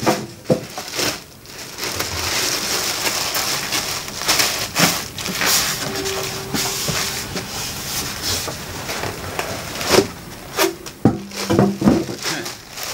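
Thin plastic bag crinkling and rustling as it is worked off a loudspeaker, with scattered knocks and squeaks as the speaker is lifted out of its polystyrene packing.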